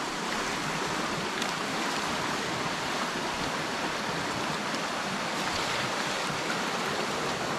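Stream water running with a steady rush.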